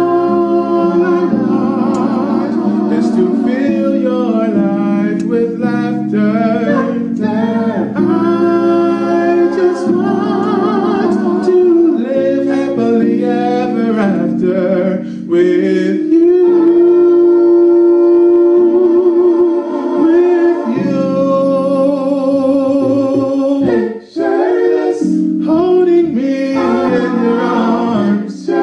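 A man singing solo into a handheld microphone, with melismatic runs and a long held note about halfway through, over sustained backing chords.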